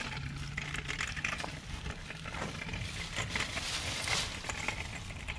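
Dry leaves crunching and rustling in a quick, irregular patter of crackles as puppies scramble through them.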